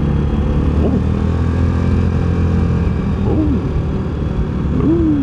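Access Shade 850 Xtreme quad's engine running steadily while the quad cruises along the road.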